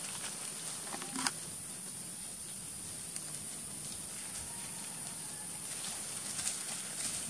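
Faint patter and rustling of long-tailed macaques scampering over grass, with a few light taps, over a steady high hiss.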